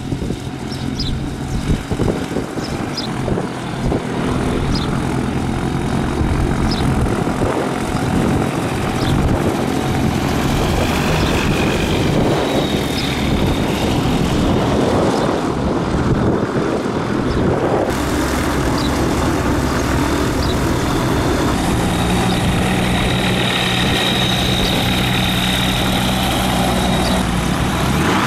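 An engine running steadily, with a further low steady tone joining about three quarters of the way in. A few short high chirps sound over it in the first half.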